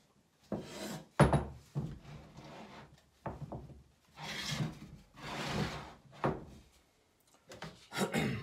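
A wooden box with a bar clamp fixed to it is handled on a wooden workbench: wood knocks on wood several times, the loudest about a second in, with longer sliding and scraping between the knocks.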